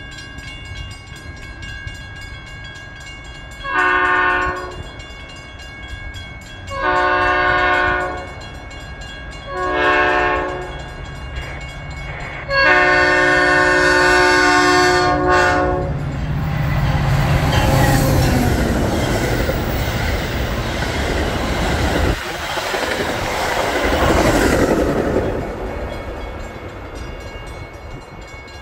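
Metra commuter locomotive sounding its multi-note air horn in the long, long, short, long grade-crossing pattern as it approaches. The train then rushes past with a rumble and wheel clatter, and the sound eases off near the end.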